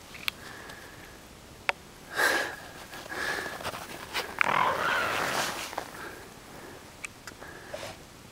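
A dog snorting and snuffling with its nose in snow: a short burst about two seconds in and a longer stretch from about four and a half to six seconds, with scattered sharp clicks.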